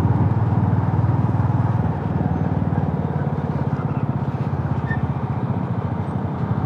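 Motorcycle engine running while riding, a steady low throb of rapid exhaust pulses. It eases off a little about two seconds in and picks up again near the end.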